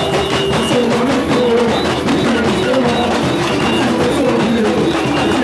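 Brazilian street-carnival band music playing loud from a sound truck: a melody line over a steady drum and percussion beat.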